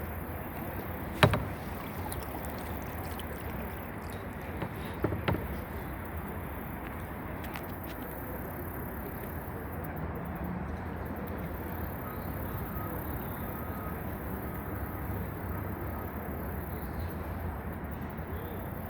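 Kayak on a river, with a steady low rumble of background noise. There is a sharp knock about a second in, the loudest sound, and two softer knocks around five seconds. A faint series of short high notes comes a little past the middle.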